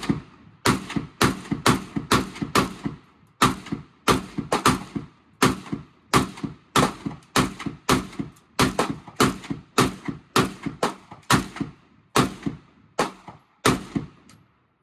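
Rapid gunshots at a shooting range: some thirty-odd shots at irregular spacing, about two to three a second, each cracking sharply and ringing out briefly.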